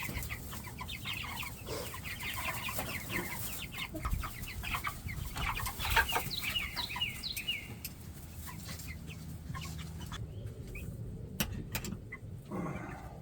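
Flock of five-week-old Cornish cross meat chickens clucking and peeping, with a few sharp knocks in between.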